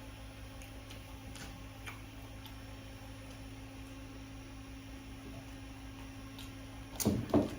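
Steady low electrical hum, with a few faint soft clicks and, about seven seconds in, a brief voiced sound.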